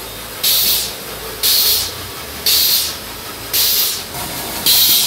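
Hose-fed air-operated grease gun hissing in five even spurts, about one a second, as grease is pumped into the grease nipples of a tractor's front steering linkage.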